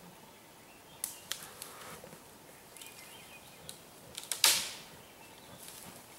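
Twigs and branches snapping and brush rustling as a black bear moves through the undergrowth: a few sharp snaps about a second in, scattered small cracks, and one loud crack with a short rustle about four and a half seconds in.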